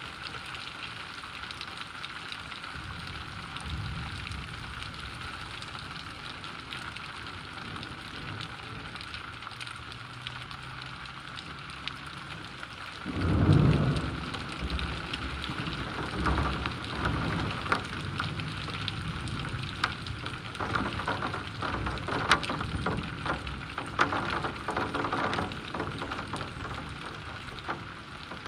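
Steady heavy rain, with a clap of thunder about halfway through that trails off into a low rumble. After the thunder, close drops tap sharply and often.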